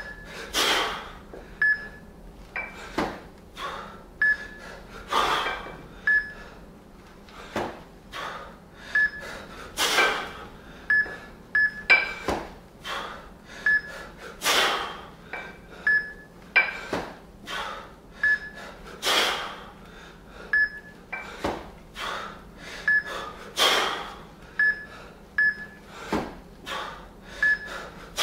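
Hard breathing of a man doing two-arm kettlebell jerks, with a forceful exhale every few seconds. Short high beeps sound again and again from a wrist-worn Fixometer, a lockout timer, among sharp knocks of the kettlebells.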